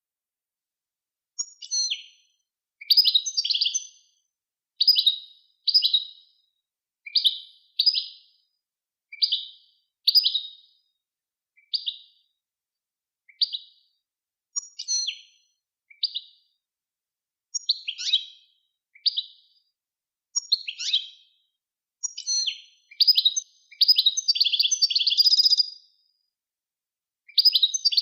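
Songbird singing a 'Widaniya'-style training song: short high chirped phrases about once a second with silence between them, running together into longer trilled runs toward the end.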